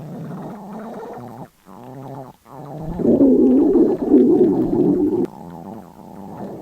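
A hungry person's stomach growling: a run of low, gurgling rumbles with short breaks, then a louder, longer growl from about three seconds in that lasts about two seconds.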